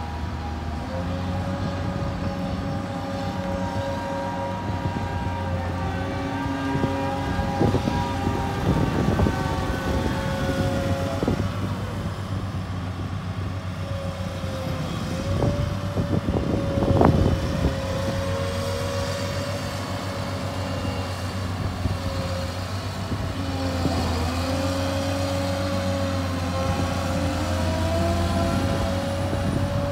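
Cat M316D wheeled excavator's diesel engine running steadily under a pitched hydraulic whine that dips and bends as the boom and tiltrotator move. A few sharp clunks break in, between about 8 and 11 seconds in and loudest about 17 seconds in.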